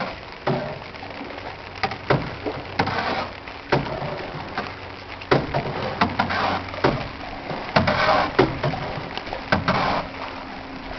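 Floodwater splashing and sloshing around a small boat in repeated swells, with scattered knocks of wood against the hull.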